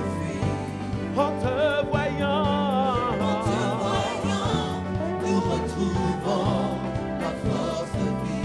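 French gospel worship song performed live: voices hold long notes with vibrato over a band with steady bass and a regular drum beat.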